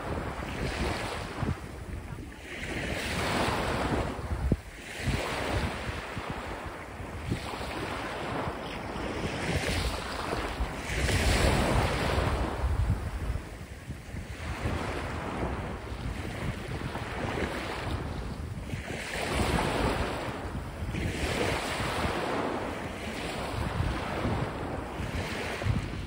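Small sea waves breaking and washing up a sandy shore in uneven surges every second or two, the loudest about halfway through, with wind rumbling on the microphone.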